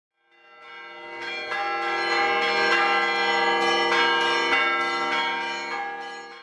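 Bells ringing, many overlapping strikes sounding together. The sound fades in over the first second and cuts off abruptly at the end.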